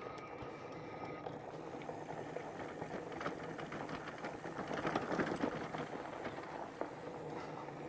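Fat-tire e-bike rolling along a dirt trail: a steady crackling rattle from the tyres and bike over rough ground, with a faint steady whine that stops about a second in.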